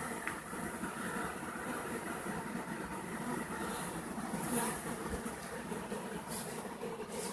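Steady, dense drone of many honeybees flying around the hives of an apiary during the main honey flow.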